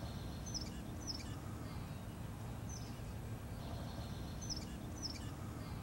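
Outdoor ambience: a low steady rumble with a small bird chirping briefly five times.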